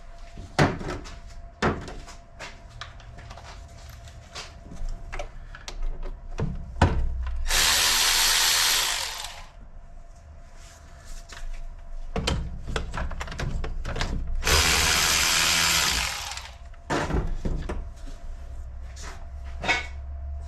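A power tool runs in two bursts of about two seconds each, about seven seconds apart, while fasteners are removed from the intake manifold of a Toyota 4A-GE 16-valve engine. Scattered metallic clicks and knocks of hand tools and parts fill the gaps between the bursts.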